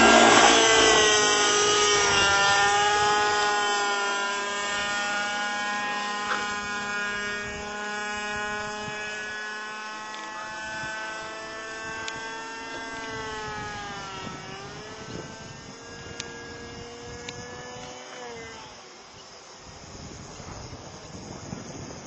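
Robbe Millenium 2 radio-controlled helicopter flying, its engine and rotors giving a high, steady whine that dips in pitch a couple of times. The sound grows steadily fainter and is gone about 19 seconds in.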